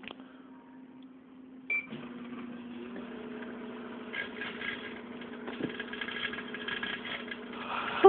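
Microwave oven humming as it runs, with a short high beep about two seconds in. From about four seconds in comes a dense crackling buzz: electrical arcing as a CD's metal layer sparks inside the oven.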